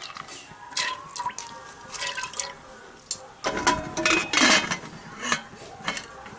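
Soaked split peas tipped by hand into water in a 5-litre Contura pressure cooker, pattering and splashing. Then the metal lid is fitted and the handles are locked, with a loud clatter and scraping of metal about halfway through and a few knocks near the end.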